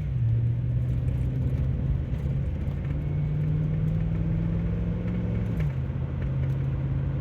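A vehicle engine running on the move with a steady low hum and rumble. Its pitch steps down just after the start, rises again about two and a half seconds in, and drops again about five and a half seconds in.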